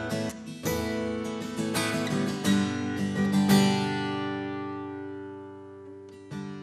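Acoustic guitar strummed: a run of chords, then one chord left to ring and die away for a couple of seconds, and another strum near the end.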